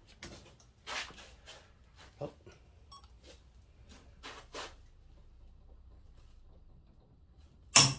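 Icon half-inch split-beam torque wrench being pulled steadily under load, with a few light clicks and knocks. Near the end comes one loud, sharp click as the wrench breaks over at its set torque of about 125 ft-lb.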